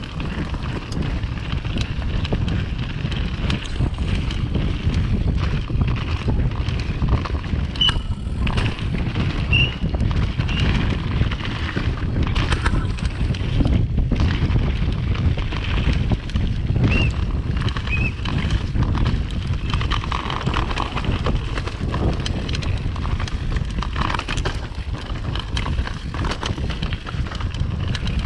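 Downhill mountain bike running fast down a dirt forest trail: tyres rumbling over dirt and roots, with the bike clattering and rattling over the bumps and wind noise on the microphone. A few short high squeaks around a third of the way in and again past the middle.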